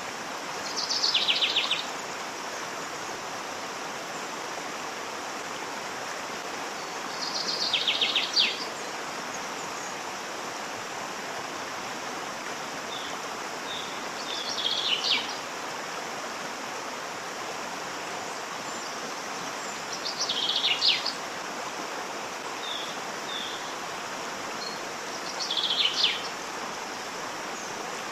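Waterfall running with a steady rush of water. A songbird sings a short trilled phrase that falls in pitch, five times about six seconds apart, with a few faint chips between.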